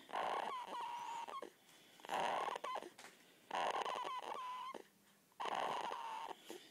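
Two-week-old baby snoring: four noisy breaths about a second and a half apart, each with a thin whistling note.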